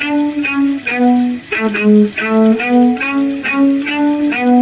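Solo violin playing a melody of short, detached notes in its low register, about three notes a second.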